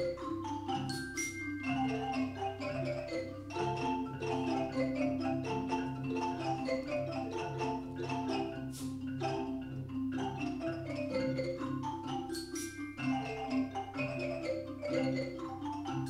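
Mallet-percussion music: a repeating pattern of struck notes over a steady low bass, with a few bright ringing strikes.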